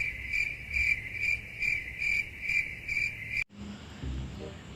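Crickets chirping in a steady pulsing rhythm, a little over two pulses a second. The chirping cuts off abruptly about three and a half seconds in, giving way to a low hum with faint repeated pitched pulses.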